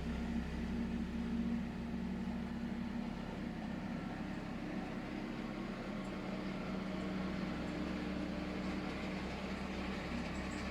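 Small engine of a walk-behind tractor running steadily while clearing snow, its note dropping slightly about two seconds in.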